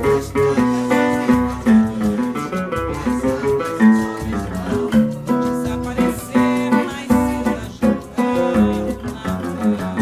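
Seven-string nylon-string acoustic guitar (violão de sete cordas) playing samba, a steady run of plucked single notes and chords over a moving bass line.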